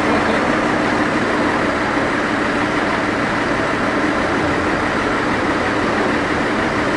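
Tenryū Hamanako Railway diesel railcar's engine idling steadily while the car stands at the platform.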